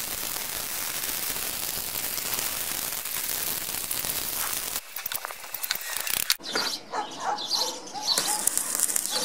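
Stick (shielded metal arc) welding on steel: the arc's steady crackling hiss as the coated rod burns, stopping suddenly about five seconds in. A few small clicks follow, then birds chirping.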